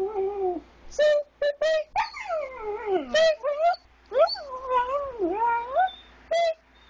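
Jack Russell terrier howling ('singing') in long, wavering notes that slide up and down in pitch, broken up by short high notes.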